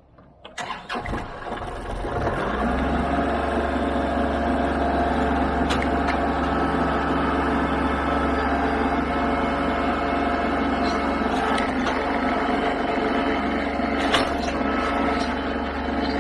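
Tractor engine starting about a second in and then running steadily, with a few short knocks over it.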